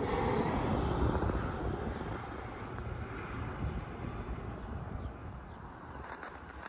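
Low rumble of a passing vehicle fading away, with a few faint clicks near the end.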